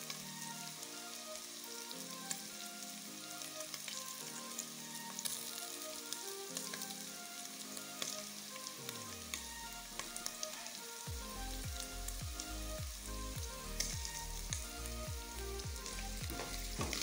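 Beef, green capsicum and onion sizzling steadily in hot oil in an aluminium pot, with occasional clicks and scrapes of a wooden spoon stirring: the meat is being browned. Faint background music runs underneath, with a bass beat coming in about two-thirds of the way through.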